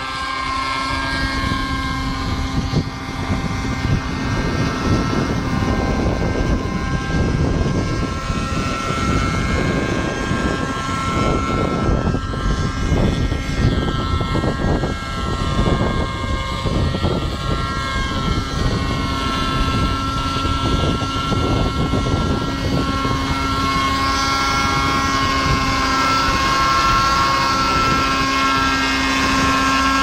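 Raptor 50 Titan radio-controlled helicopter in flight: its nitro glow engine and rotors give a steady whine that shifts in pitch as it manoeuvres, getting louder in the second half as it comes in close. Strong wind buffets the microphone with a heavy rumble.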